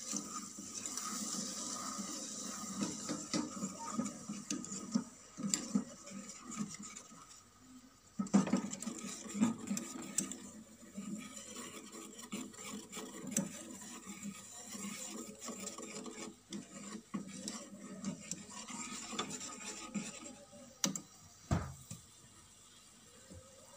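Wire whisk stirring caramel sauce and milk in a stainless steel saucepan, the wires scraping and clinking irregularly against the pan. There is a sharper knock near the end.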